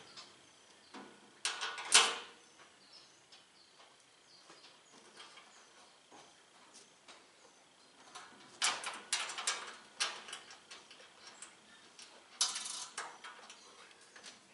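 Metal clinks and rattles of bolts, washers and nuts being handled and fitted into a steel tool cart, in three short bursts with scattered single clicks between.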